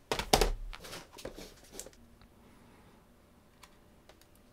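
Hands handling computer hardware on a workbench: a dull thump as a plastic-cased unit is laid down on the mat, with a few sharp plastic clicks and rustles in the first two seconds. After that there is faint room tone with one small click.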